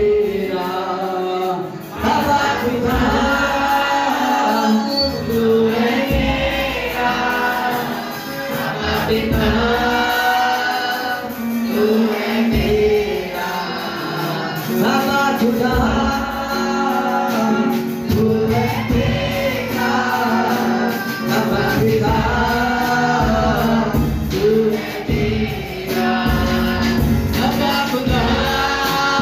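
Live Christian worship song in Hindi, sung into microphones by a group of women and a man over instrumental accompaniment with a steady held low note.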